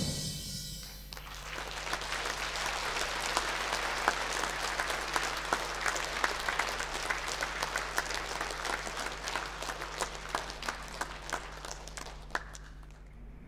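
Audience applauding, swelling over the first couple of seconds and thinning out near the end.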